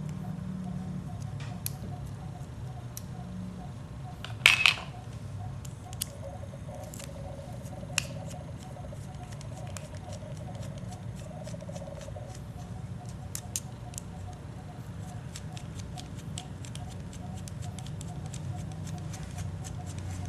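Small metallic clicks and ticks of a hex key and steel screws being worked on the cylinder head of an OS 46AXII two-stroke model engine, with a louder double clack about four and a half seconds in. The ticks come more often in the last few seconds. A steady low hum runs underneath.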